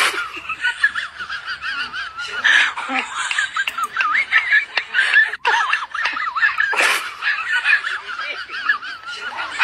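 High-pitched giggling laughter that goes on without a break, its pitch wavering quickly up and down.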